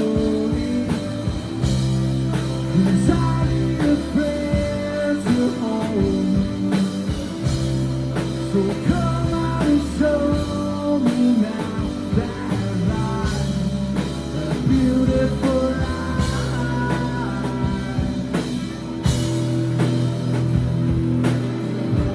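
Live rock band playing: electric guitar over bass and drums, with melodic lines wandering above a steady low bass.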